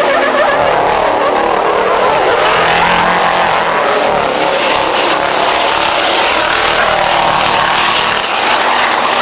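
Racing diesel trucks' engines running hard, a loud, steady drone of several engines at once.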